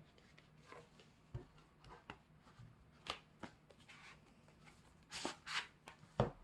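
A boxed CD album being handled and unpacked by hand: paper and plastic packaging rustling and sliding, with scattered light clicks and a few sharp knocks, the loudest shortly before the end.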